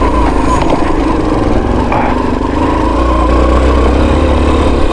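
Dirt bike engine running steadily.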